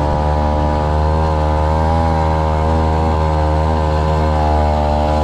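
Small brush-cutter (grass-trimmer) engine driving a long-tail propeller shaft, running steadily at speed and pushing a small boat along. Its loud note holds a near-constant pitch throughout.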